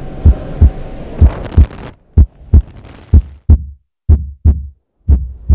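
Heartbeat sound effect: pairs of deep lub-dub thumps about once a second, added for suspense. A steady background rush sits under the beats and cuts out about two seconds in, leaving the heartbeat alone.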